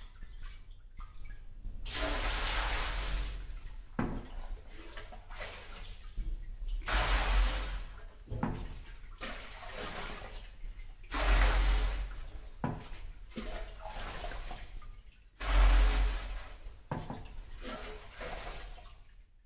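Jugfuls of macerated black gin, liquid with its botanicals, scooped from a plastic drum and poured into the open pot of a stainless steel still: four pours of a second or two each, about four seconds apart, with quieter sloshing and jug clunks between.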